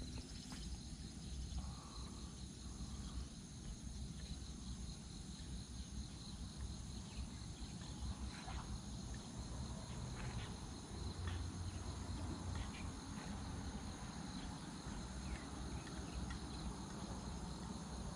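Insects trilling in a steady high chorus over a low outdoor rumble, with a few faint ticks.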